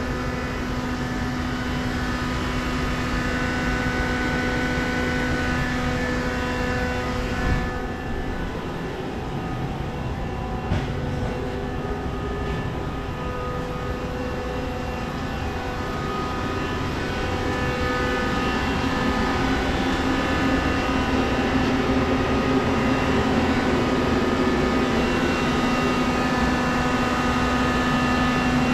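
Hitachi Seiki CNC lathe powered up and running, a steady mechanical hum with several whining tones over it, growing a little louder in the last third. There are two brief clicks about 8 and 11 seconds in.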